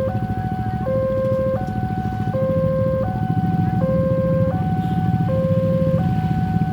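Level crossing warning alarm sounding a repeating two-tone signal, switching between a low and a higher note about every three-quarters of a second, warning that a train is approaching or passing. A heavy low rumble runs underneath.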